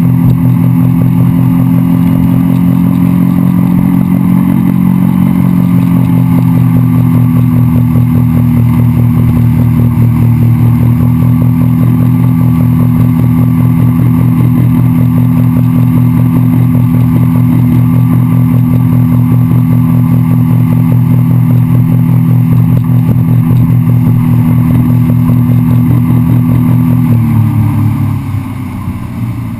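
Honda 50 hp four-stroke outboard running steadily at high throttle under the load of towing an inflatable ring, with the rush of the boat's wake. Near the end the throttle comes off and the engine note drops and quietens.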